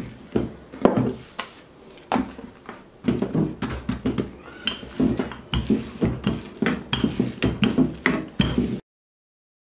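Wooden rolling pin with handles rolling over dough on a wooden board, knocking and clattering. The knocks are sparse at first, then come quickly and rhythmically, about three to four a second, as the pin goes back and forth. The sound cuts off abruptly near the end.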